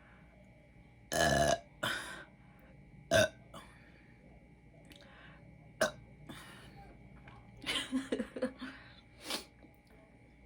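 A woman belching over and over after drinking soda: a long loud burp about a second in, shorter ones following, and a quick run of burps near the end.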